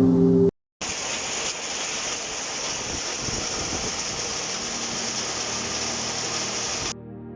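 Steady rain falling, an even hiss with no rhythm or tones, starting just under a second in and cutting off suddenly near the end.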